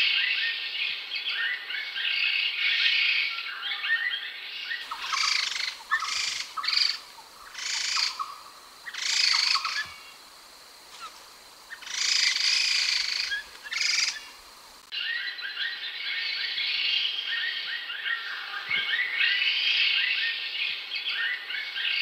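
Khướu đầu xám (grey-headed laughingthrush) song: dense, chattering phrases. In the middle stretch the song comes as separate loud phrases with short pauses between them.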